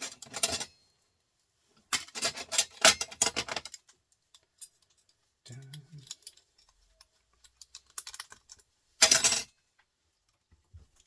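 Clatter of small hard parts being handled during the hand dismantling of a printer: three bursts of quick clicking and rattling, the middle one longest and the last one near the end.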